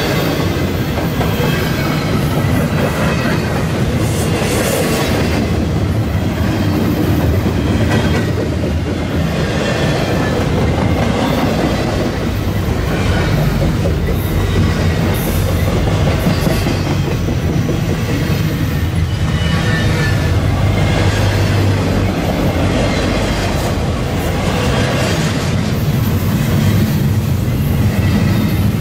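Double-stack intermodal well cars rolling past close by: a steady, loud rumble of steel wheels on rail with clanking over the joints and a faint high wheel squeal at times.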